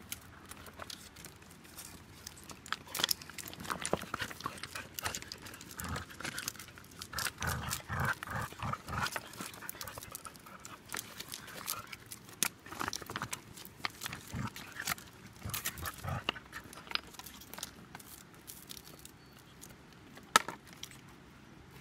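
Two Australian cattle dogs tugging at a stick between them, growling, with many clicks and knocks of the branch and their teeth. The busiest stretch is in the middle, and there is a single loud sharp knock near the end.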